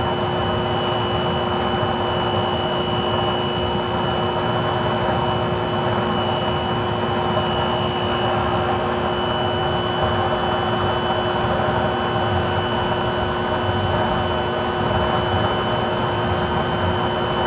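Small electric blower running steadily, forcing air into a waste-oil burner stove: an even rush of air over a steady motor hum.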